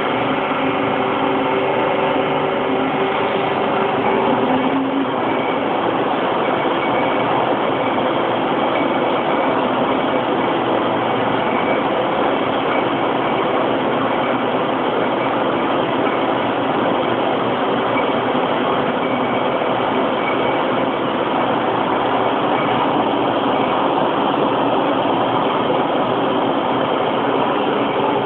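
Electric colliery winding engine running, a steady, loud mechanical drone with a few faint held tones.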